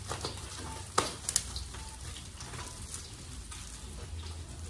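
Food sizzling in a frying pan on a gas stove while it is stirred with a spatula, with a few sharp clicks a little over a second in.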